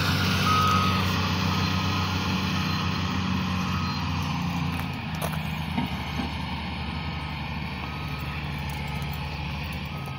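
Caterpillar 14H motor grader's diesel engine running steadily, slowly fading as the machine moves away, with a reversing alarm beeping about once a second over it.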